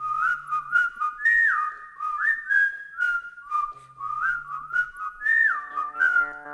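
A whistled tune that slides up and down between notes, over a sparse clicking beat and a low droning bass note. A held chord comes in near the end.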